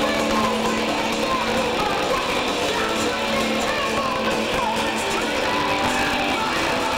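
Live heavy metal band playing: electric guitars, bass and drums, continuous and loud, with gliding guitar pitch bends.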